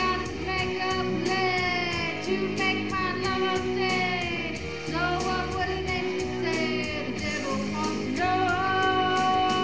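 Live music: a singer holding long, gliding notes over guitar backing, one long held note near the end.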